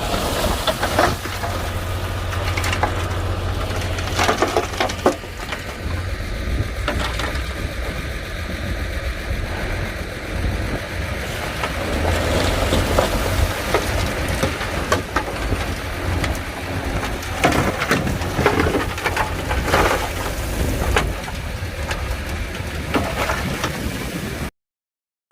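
Komatsu D41P crawler bulldozer working: a steady low diesel engine rumble, with repeated clanks and cracks from the tracks and blade as it pushes soil. The sound cuts out completely for under a second near the end.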